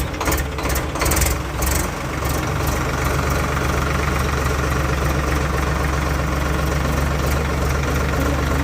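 Swaraj 855 tractor's diesel engine running, with uneven clattering strokes for the first couple of seconds before it settles into a steady idle.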